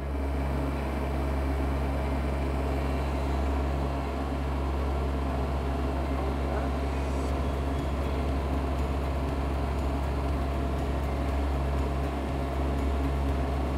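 Small excavator's diesel engine running at a steady idle, a low even hum, with its exhaust passing through a diesel particulate filter.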